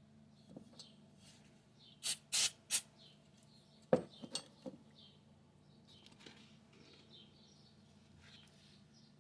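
Close handling of a small electric motor while a carbon brush is fitted into its brush holder. There are three short hissing bursts about two seconds in, then a sharp click and a couple of lighter clicks.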